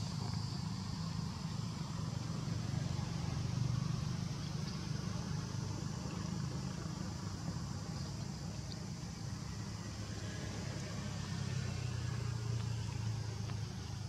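Low, steady engine drone of a motor vehicle, with a faint high hiss above it.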